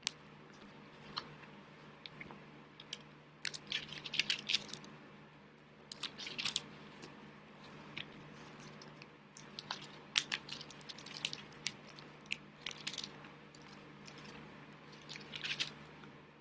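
Clusters of soft rustles and clicks from a person signing in American Sign Language, his hands and arms moving against his shirt, over a low steady hum.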